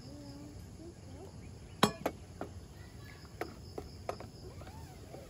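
Wooden spatula knocking and tapping against a camping frying pan while stirring eggs into vegetables: one sharp knock just under two seconds in, then several lighter taps.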